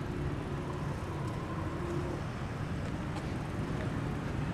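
Street ambience: a steady low rumble of passing traffic on a town road.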